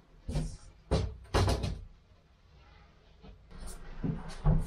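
A foam-cored wardrobe door being fitted by hand into its timber surround: three or four sharp wooden knocks and bumps in the first couple of seconds, then quieter handling with a few more knocks near the end.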